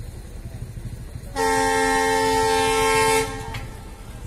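Train horn sounding one long blast of about two seconds, a chord of several steady tones that cuts off sharply, over a low steady rumble.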